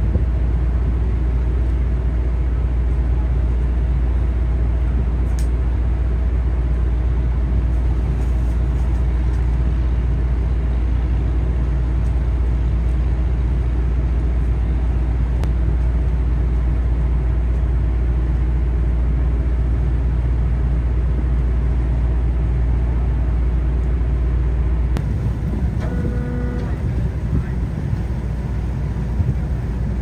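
A motor running with a steady low rumble. About 25 seconds in the rumble thins out, and a short pitched tone sounds a second later.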